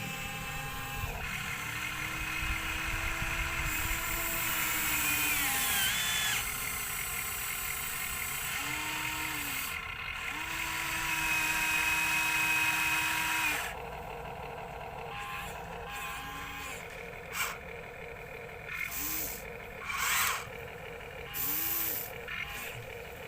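Small electric motors of a toy construction vehicle whining in long runs, starting, stopping and shifting pitch. Then, past halfway, a quieter stretch broken by several short whirs.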